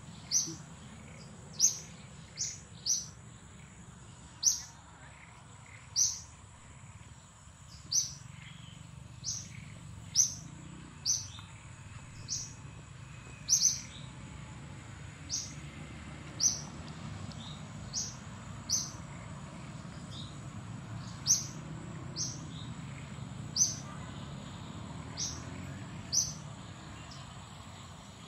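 A bird giving short, high chirps that drop in pitch, repeated irregularly about once every one to two seconds, over a steady high thin whine.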